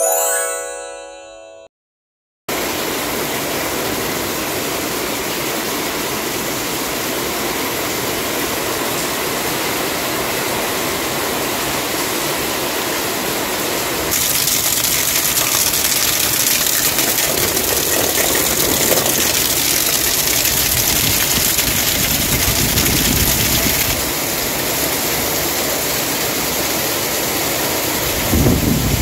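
A short chime-like musical tone that fades out, a brief silence, then steady heavy rain. The rain grows louder and hissier for about ten seconds from roughly halfway through, and a low rumble rises near the end.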